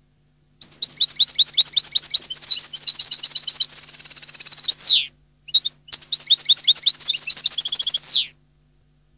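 European goldfinch singing: two long phrases of rapid, high twittering notes separated by a brief pause about five seconds in. The first phrase ends in a fast trill and a falling note, and the second ends the same way with a falling note.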